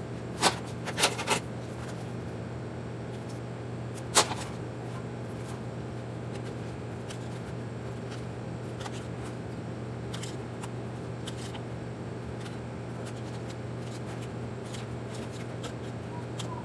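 Small scissors snipping EVA foam scales: three sharp snips in the first second and a half, one more about four seconds in, then only faint occasional clicks over a steady low hum.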